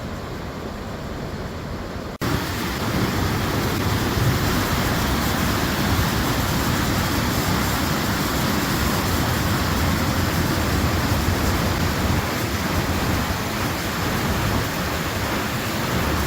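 River waterfall rushing, a steady roar of water. The sound jumps louder at an abrupt cut about two seconds in.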